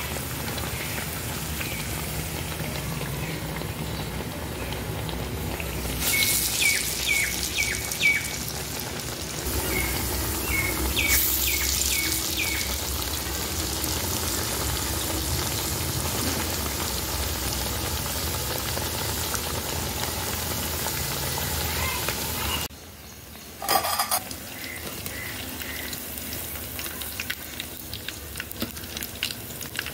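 Masala vadas deep-frying in hot oil, a steady sizzling hiss. Twice a bird chirps, a quick run of about five short falling notes each time. About three-quarters through, the sizzle drops briefly and a few sharp clicks follow.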